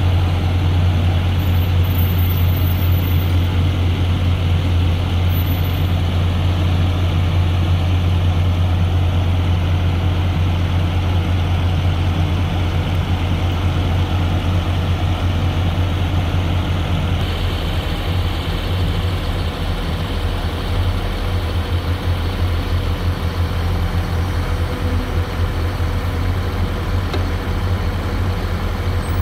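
Tracked excavator's diesel engine running with a steady deep drone, turning rougher and more uneven a little past halfway as the machine works.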